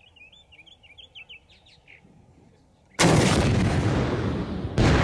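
An M136 AT4 84 mm anti-tank weapon is fired. A sudden heavy blast comes about three seconds in and rolls on in a long rumble, and a second blast follows just under two seconds later, the round striking its target downrange. Birds chirp faintly before the first blast.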